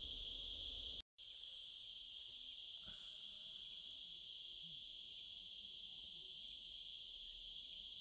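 A faint, steady, high-pitched chorus of insects shrilling without a break, cutting out for a moment about a second in.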